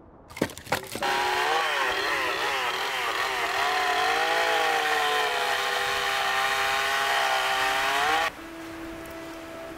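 A chainsaw cuts through logs. Its pitch repeatedly dips and rises as the chain bites into the wood, and it stops abruptly near the end. Two sharp knocks come just before it starts.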